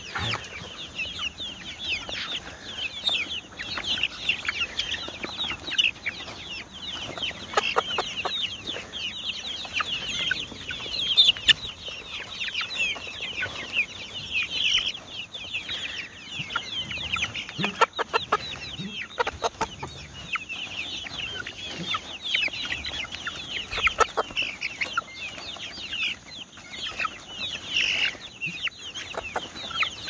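A pen of young chickens peeping and clucking nonstop, many high, falling cheeps overlapping. A few sharp knocks stand out along the way.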